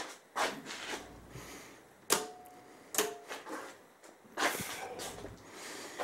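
A handful of sharp clicks and light knocks at irregular spacing, with a short rustle about four and a half seconds in.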